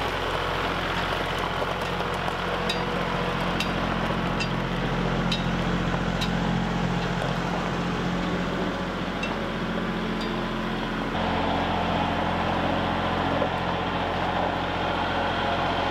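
Kubota L3901 compact tractor's three-cylinder diesel engine running steadily while its front loader carries a log. A few light ticks sound in the first ten seconds.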